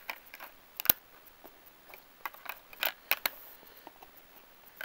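Sharp plastic clicks and knocks as a Blu-ray disc is pressed onto the hub of a steelbook's clear plastic disc tray and the case is handled. The loudest, sharpest click comes about a second in, with a quicker run of smaller clicks around the middle.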